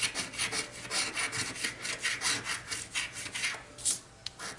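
Scraping the coating off the winning-numbers area of a scratch-off lottery ticket, in quick back-and-forth strokes about four a second that stop near the end.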